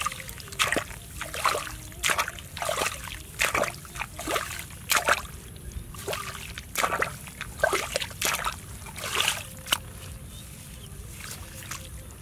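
Muddy water in a small pit being splashed and scooped out with a hand tool, a run of separate splashes about one to two a second. The strokes thin out and get quieter near the end.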